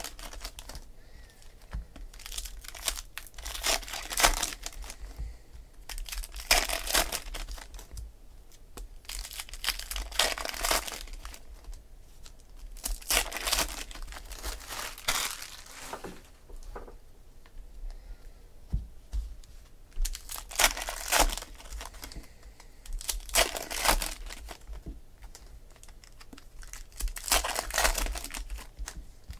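Trading card pack wrappers of plastic and foil being crinkled and torn open by hand, in short rustling bursts every couple of seconds.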